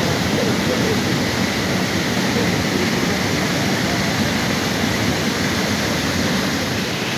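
Waterfall spilling into a fast-flowing, foaming river: a steady, even rush of water.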